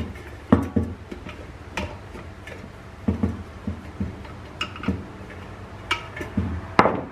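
Irregular clicks and light knocks of small metal hardware being handled, as the rubber packing mounts and their screws are taken off a ceiling fan's motor housing. The loudest knock comes near the end.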